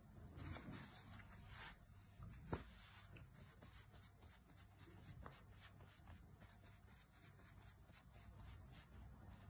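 Near silence, with faint soft rubbing and patting of fingertips pressing floured pizza dough out on a wooden board; one slightly sharper tap about two and a half seconds in.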